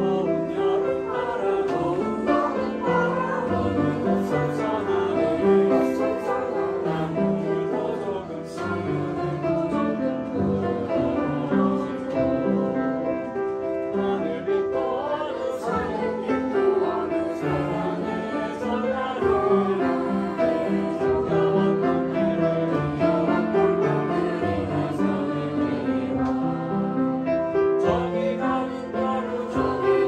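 A group of children and adults singing a song together, accompanied by an upright piano.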